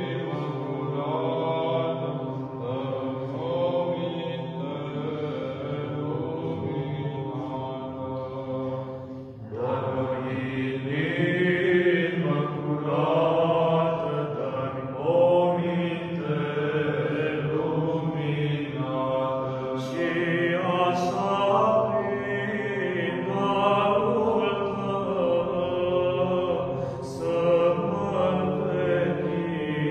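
Four men singing Romanian Orthodox church chant a cappella, a melody line over a steady low held note. The singing breaks off briefly about nine seconds in and comes back louder.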